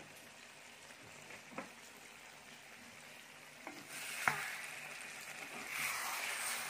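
Gongura chicken curry sizzling softly in a clay pot, with a few light knocks. From about four seconds in it gets louder as a wooden spatula stirs and scrapes through it.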